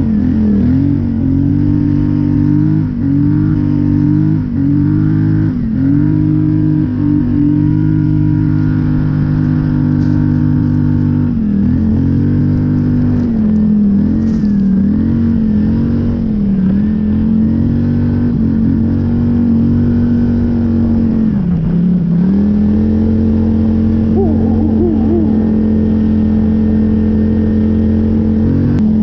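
Polaris Scrambler 850 ATV's 850 cc twin-cylinder engine running under load while riding through deep snow, the pitch repeatedly dipping and rising as the throttle is worked, then holding a steady pitch for the last several seconds.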